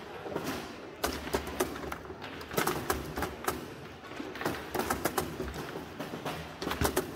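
Foosball in play on a Framesport CR Factory table: the ball and the rod figures give irregular sharp clacks and knocks, several a second at times, as the ball is struck and hits the table.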